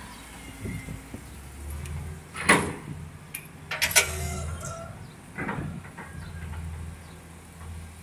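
Sharp metallic clanks and knocks from work on the hydraulic hose fittings of a JCB backhoe boom, the loudest about two and a half and four seconds in, over a low steady machine hum.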